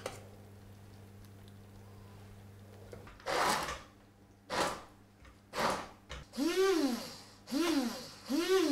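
Hand-held stick blender pureeing a small bowl of bolognese in short pulses: a few brief churning bursts, then four pulses in which the motor whirs up and winds back down. The pulsing purees the baby's portion only slightly, leaving some texture.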